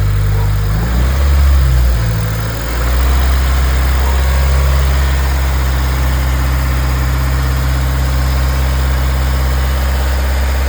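Toyota 86's flat-four boxer engine idling steadily, with a brief rise in revs about a second in before it settles back to idle. The owner is listening for a possible rod knock.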